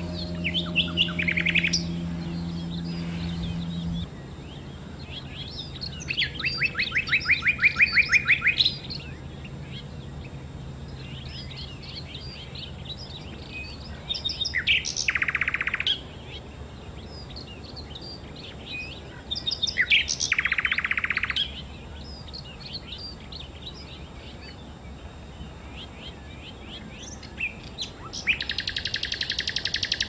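Small songbird singing loud bursts of rapid, evenly repeated high notes, five times, with softer chirps and twitters between them. A low steady hum runs underneath at first and cuts off abruptly about four seconds in.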